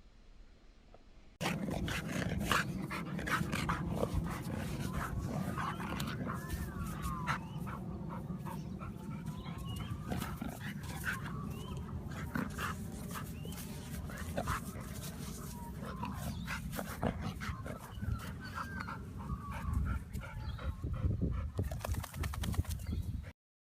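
A dog whining in high rising-and-falling cries, over a steady low rumble with many short clicks, starting after a short quiet opening.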